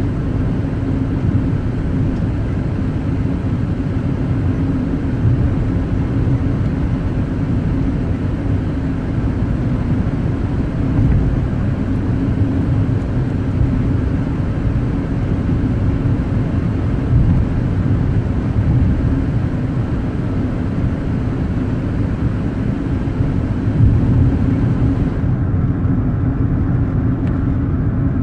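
A car being driven at a steady pace: low engine drone with a constant hum and tyre and road rumble, even in level with no revving up or down.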